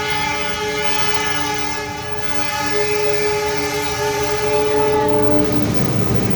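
Train horn sounding one long blast, a chord of several steady tones, that stops about five and a half seconds in as the rumble of the passing train swells.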